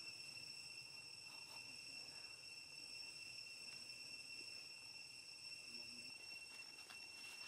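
Faint, steady, high-pitched drone of insects, unbroken throughout, with a few soft ticks.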